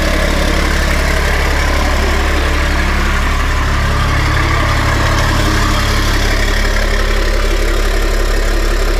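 Caterpillar 3126 inline-six diesel engine idling steadily, with its air compressor building pressure in the truck's air-brake system.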